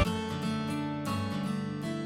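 Background music: gently strummed acoustic guitar, quieter after a louder, busier passage cuts off right at the start.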